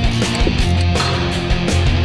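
Background rock music with electric guitar and a steady drum beat.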